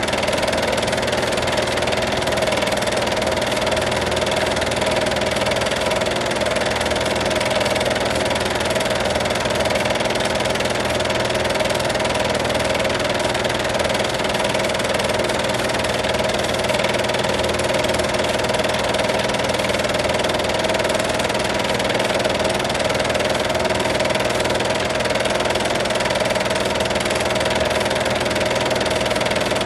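Film projector running: a steady mechanical whir and hum that holds constant throughout.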